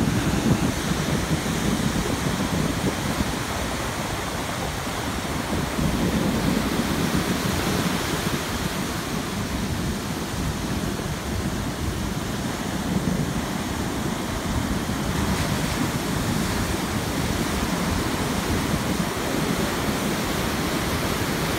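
Ocean surf breaking and washing ashore: a steady rush of white water that swells and eases every few seconds as waves come in.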